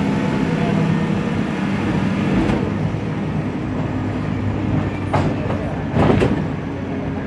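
Mercedes-Benz O500U city bus engine running with a steady hum, with a few short sharp noises about five and six seconds in.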